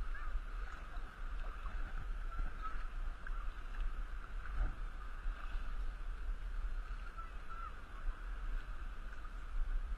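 Water sloshing and lapping around an inflatable two-person kayak as it is paddled with a double-bladed paddle, under a steady low rumble.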